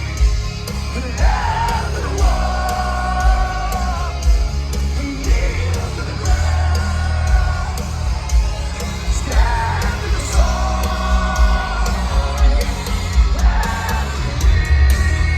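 Heavy metal band playing live with loud drums and distorted guitars, a voice yelling and singing over it.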